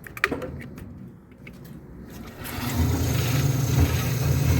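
A few sharp clicks, then about two and a half seconds in the old Maytag top-load washer's motor starts and runs with a steady low hum on the spin cycle. The machine is now powering on after its faulty micro switch assembly was replaced.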